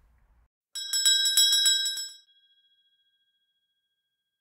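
Shop door bell rung with a quick run of strikes for about a second and a half as the door opens, then its tone rings on and fades.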